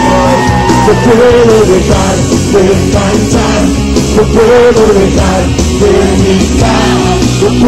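Live praise music from a worship band, played loud and steady, with a melody line over a full accompaniment.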